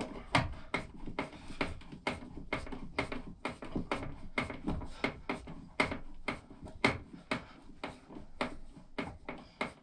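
Hands handling hard plastic smoke alarm parts, taking an alarm out of its mounting: a run of irregular clicks and knocks, about two or three a second.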